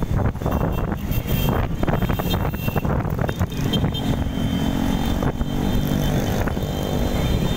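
Small motorcycles and scooters running along together in a group ride, with wind rumbling on the microphone of the moving bike. A steadier engine hum comes through about halfway.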